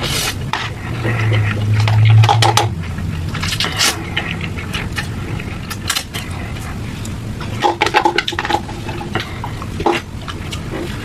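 Close-miked eating of noodles: chewing and slurping, with utensils clicking and scraping against a bowl as many short clicks.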